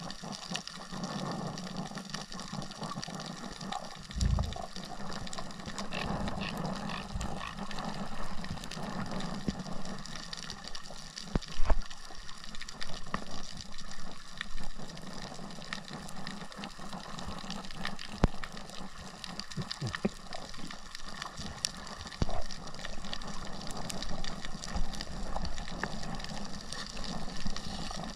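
Underwater sound through a camera housing: a steady rush of water with scattered sharp clicks throughout, and a few low knocks, the loudest near the middle.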